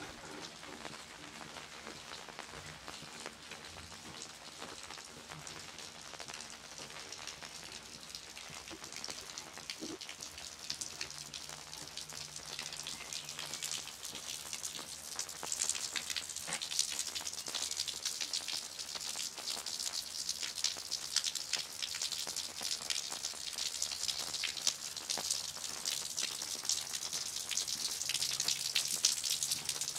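Rain falling on wet streets: a dense hiss of fine drops that grows louder about halfway through.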